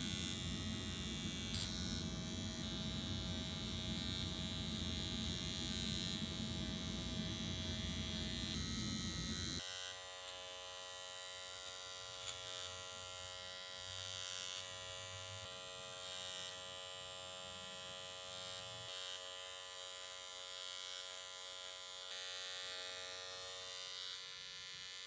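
Dr. Pen electric microneedling pen buzzing steadily as it works over the skin. About ten seconds in the buzz becomes quieter and thinner, losing its low rumble, then carries on evenly.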